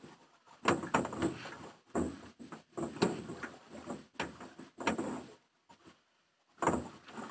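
Strokes being worked in a small boat: a series of knocks, scrapes and splashy rushes about once a second, with a brief pause near six seconds in.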